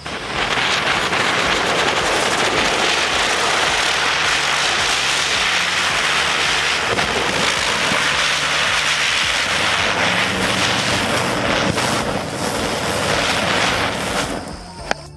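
Sony Vinayaga 'Special Color' ground chakkar (spinning ground firework wheel) burning, a loud steady hiss of spraying sparks as it spins. It starts suddenly and fades out about a second before the end as the charge burns down.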